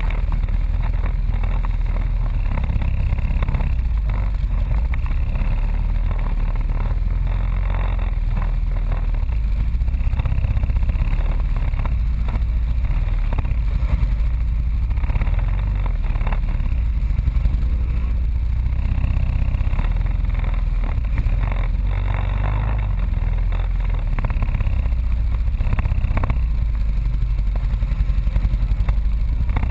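ATV engines running under load on a rough, muddy trail. The machines' knocks and rattles sound through as they bounce over ruts.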